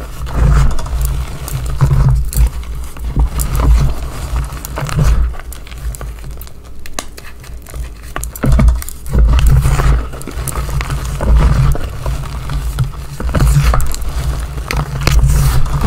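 Gloved hands squeezing and pressing into powdery gym chalk, giving soft crunching and crackling with dull low thuds. It comes in irregular squeezes, one every second or two.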